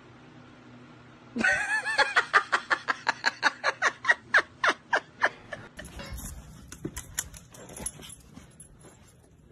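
An animal's drawn-out, wavering high cry, followed by a fast run of short high-pitched cries, about five a second, that stops after about four seconds. Low rumbling noise with scattered clicks follows.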